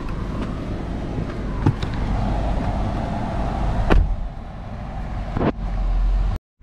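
Car running, a steady low rumble with three short knocks, the loudest about four seconds in. The sound cuts off suddenly near the end.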